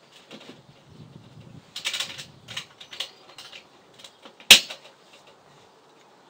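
Metal lid and stacked steel sections of a ProQ bullet smoker being handled: a few soft knocks and scrapes, then a sharp metallic clank about four and a half seconds in.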